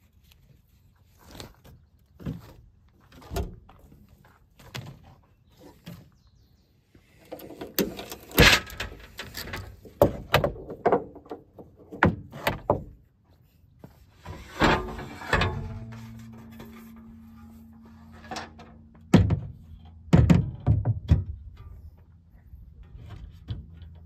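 Ratchet tie-down straps and a charging cable being handled in a pickup bed: a run of clicks, knocks and rustling, busiest in two clusters. A low steady hum comes in about two-thirds of the way through.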